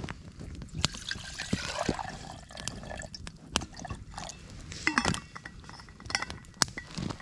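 Liquid being poured into cookware, with clinks of metal cookware and many scattered sharp clicks.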